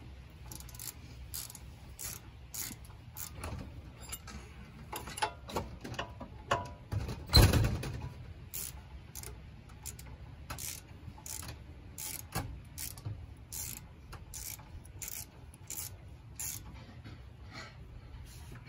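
Hand ratchet wrench clicking in scattered strokes as the rear brake caliper bolts are run in, with one louder metal clank about seven seconds in.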